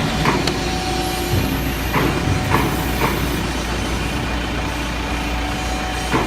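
CNC electro-hydraulic press brake running: a steady low hum from its hydraulic drive with a constant whine over it. A second, lower whine comes and goes, and a few sharp clicks sound irregularly.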